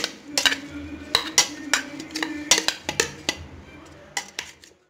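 Irregular clinks and knocks of a stainless steel bowl as grated vegetables are mixed in it by hand, dying away near the end.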